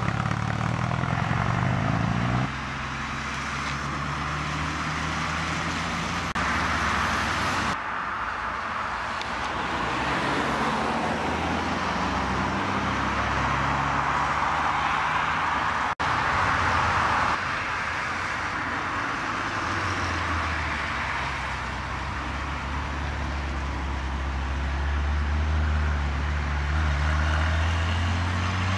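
Classic sports cars driving past one after another: engine notes and tyre noise, changing abruptly several times between passes. A low engine drone builds near the end.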